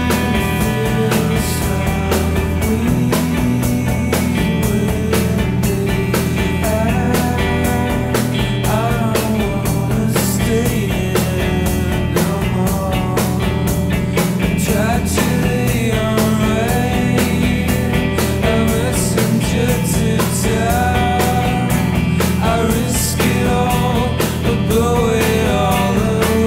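Rock music with guitar, drums and a singing voice.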